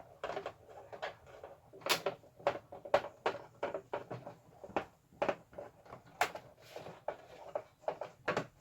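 Irregular clicks and knocks of a Bionaire tower fan's plastic housing being handled and taken apart to remove its cover.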